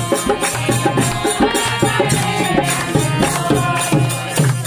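A group of women singing a devotional bhajan to a harmonium, with a steady rhythm of hand-clapping.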